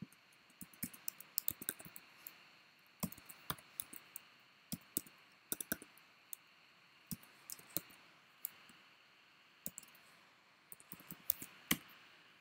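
Computer keyboard typing: irregular keystrokes in quick runs with short pauses.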